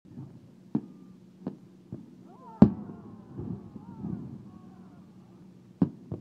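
Aerial fireworks shells bursting: six sharp bangs at uneven spacing, the loudest about two and a half seconds in.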